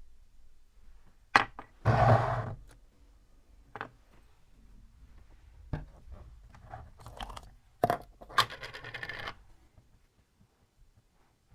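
Tools being handled in a workshop: a few sharp clinks and knocks, with a short scraping pass about two seconds in and another about eight and a half seconds in.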